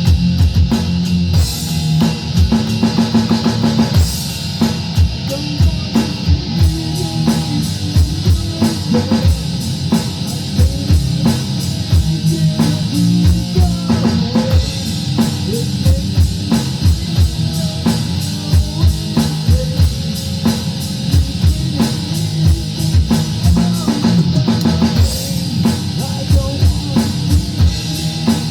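Rock music: guitar playing over a drum kit, with quick, frequent bass-drum hits.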